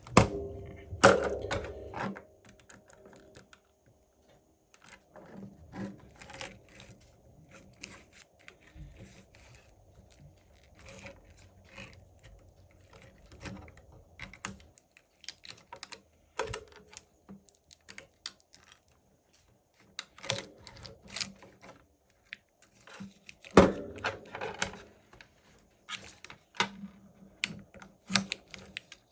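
Irregular small clicks, taps and rustles of tools and small parts being handled on a workbench, with louder knocks about a second in and again about three-quarters of the way through.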